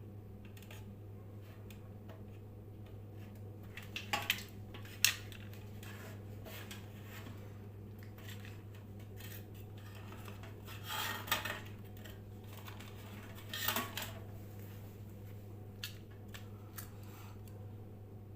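A steady low electrical hum runs throughout, with small metal objects clinking and rattling several times; the sharpest clink is about five seconds in, with further rattling bursts near the middle and around fourteen seconds.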